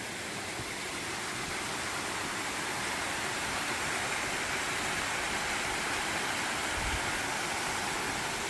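Waterfall rushing, a steady, even roar of falling water that swells slightly over the first few seconds.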